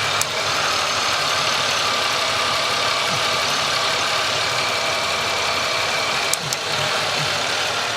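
1997 Chevrolet Malibu engine idling steadily, in a car being diagnosed for an intermittent rough idle. A few sharp ticks are heard over it, one just after the start and two close together near the end.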